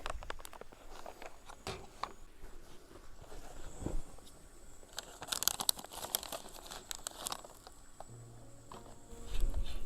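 Crinkling and rustling of something being handled, like a plastic bag or packaging, with scattered small clicks and taps and a denser burst of crinkling about halfway through.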